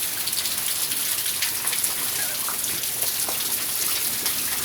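Rain falling in a thunderstorm: a steady hiss with faint scattered drop ticks.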